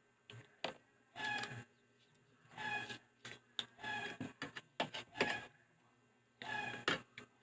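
Close-up eating sounds from someone eating mussels: a string of short smacks, clicks and slurps in separate bursts, with quiet gaps between them.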